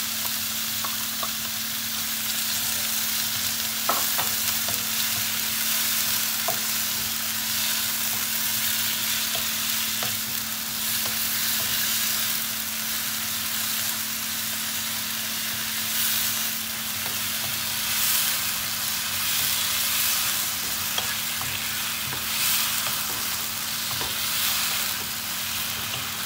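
Shrimp, broccoli and carrots sizzling in a nonstick wok, stirred with a wooden spatula that scrapes and taps against the pan, after sauce has been poured in. A steady low hum runs underneath.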